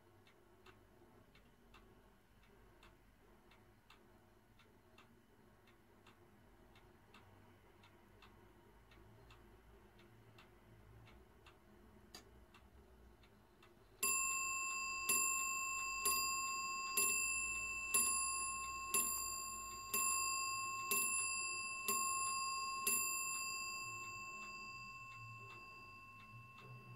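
A 19th-century French marble portico clock with a Vincenti & Cie movement ticking softly, about twice a second. About halfway through it strikes ten on its bell, one stroke a second. Each stroke rings on, and the last dies away slowly.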